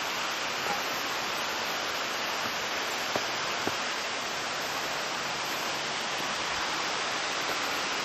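Steady rushing roar of a waterfall, with a couple of faint clicks a little past three seconds in.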